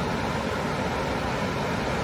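Ocean surf breaking and washing up a sandy beach: a steady rushing noise with no distinct crashes.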